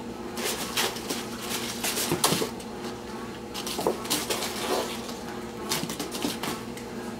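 Crumpled paper crackling and rustling, with cardboard scratching, as a kitten scrambles through the paper and climbs over the side of a cardboard box. The sound comes in irregular bursts over a steady faint hum.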